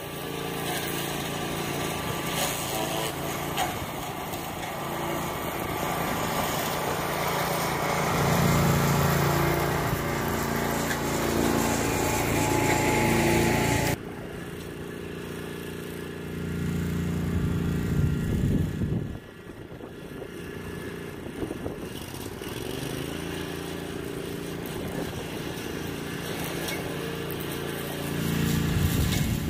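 Small engine of a homemade walk-behind brush mower running, its pitch and loudness rising and falling as it works. The sound changes abruptly twice.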